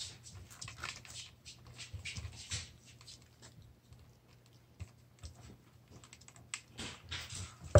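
Puppies licking peanut butter off a plastic wobble board: irregular wet licks, clicks and scratches of claws and the rocking board, coming in short flurries.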